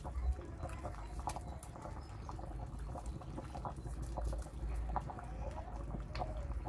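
Pot of banga soup simmering, with small irregular pops of bubbles breaking at the surface.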